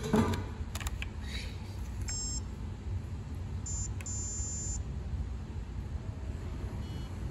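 Electronic beeps from a car wash pay station's card reader: a short beep about two seconds in and a longer one about four seconds in, over a low steady rumble.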